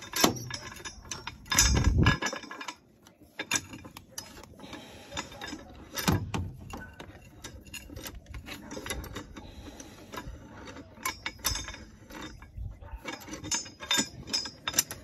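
Metal wrench clicking and clinking on the nut of a threaded-rod support jack as it is turned in short strokes, snugging the jack up just to catch the slide-out frame. A brief louder low thud comes about two seconds in.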